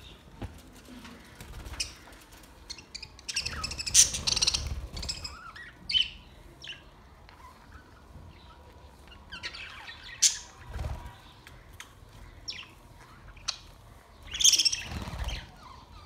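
A flock of budgerigars chirping in scattered bursts, loudest about four seconds in and again near the end.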